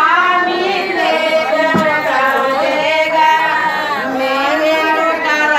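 A group of women singing a traditional wedding folk song together, several voices in unison with long drawn-out notes, over some chatter.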